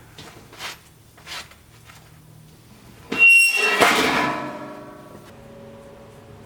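Two short swishes, then a sudden loud metallic scrape or clang about three seconds in that rings on with several tones and dies away over about two seconds.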